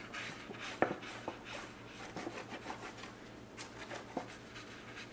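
Faint scratching and rubbing of a glue bottle's nozzle drawn across cardstock as glue is laid on, with one sharp tap a little under a second in.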